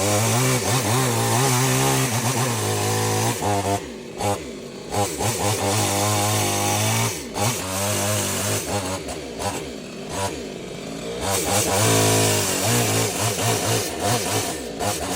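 Chainsaw cutting through dead mango wood, its engine running at high revs and easing off twice, briefly about four seconds in and longer from about nine to eleven seconds, before revving up again.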